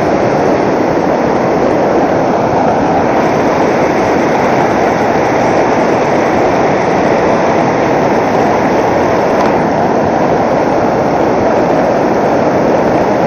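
Fast, shallow river rushing over boulders in rapids: a loud, steady rush of white water.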